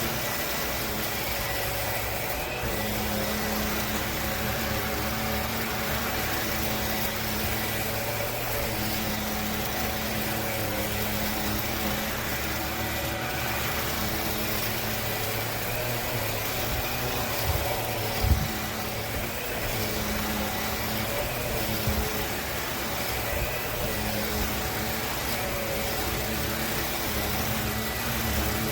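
Bissell PowerClean FurFinder cordless stick vacuum running steadily, its motor giving an even hum over a rush of air. A brief knock comes a little past the middle.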